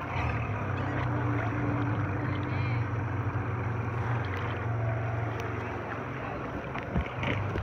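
A boat's engine running steadily with a low hum, and one knock near the end.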